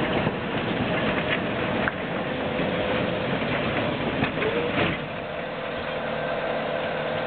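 Tram rolling slowly past, its steel wheels running on the rails under a steady hum, with a few light clicks, a short squeal and a knock about five seconds in.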